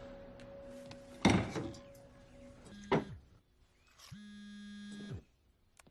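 Held background music fades out, broken by two sharp knocks about a second and a half apart. Then a low buzz with a hard edge sounds for about a second and drops in pitch as it stops.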